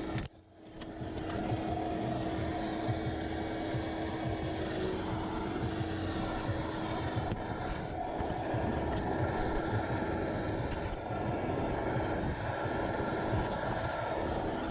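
Steady mechanical rumble with a constant hum, briefly cut out just after the start.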